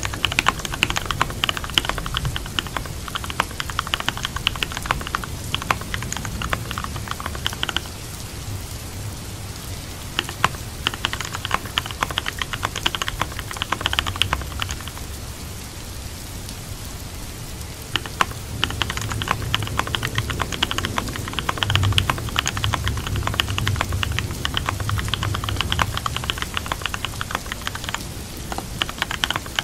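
Computer keyboard typing in runs of rapid key clicks, broken by a couple of short pauses, over steady rain.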